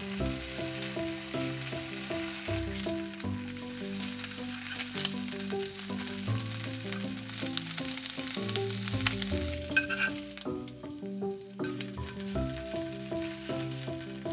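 Bacon strips sizzling in a hot frying pan, with small pops in the hiss. A light background tune plays under it.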